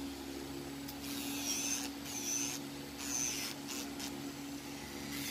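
A nail file rasping back and forth over an acrylic nail in repeated strokes, under a second apart, with a steady low hum underneath.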